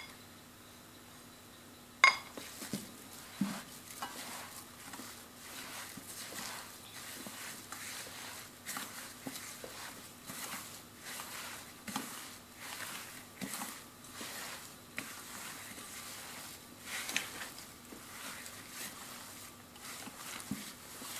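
A hand kneading and squeezing minced mutton kebab mixture with bread crumbs in a stainless steel bowl. A sharp knock against the bowl about two seconds in, then repeated squishing and scraping strokes against the metal.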